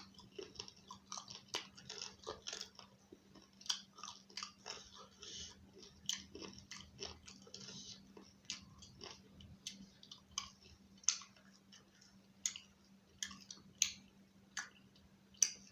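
Close-up chewing of roti with chicken and egg curry: many short, irregular mouth clicks and smacks. A faint steady hum runs underneath.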